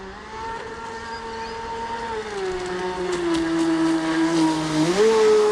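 Electric whine of an RC speedboat's Scorpion 4035 800 kV brushless outrunner motor running at speed on 6S, with water hiss from the hull. It grows louder as the boat comes closer. The pitch sags slightly a couple of seconds in, then rises sharply near the end.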